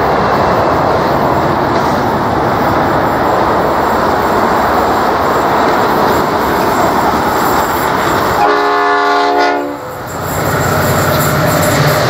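Diesel locomotive horn sounding once, a single blast of about a second and a half over a steady rushing noise, followed by the low, steady rumble of the approaching locomotives' diesel engines.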